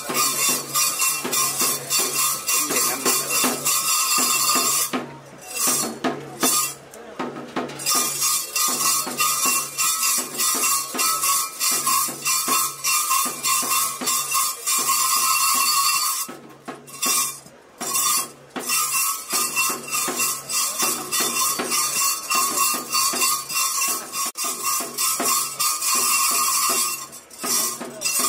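Ritual music of fast drumming with jingling cymbals and a sustained high tone over it. It breaks off briefly about five seconds in and again around sixteen seconds in.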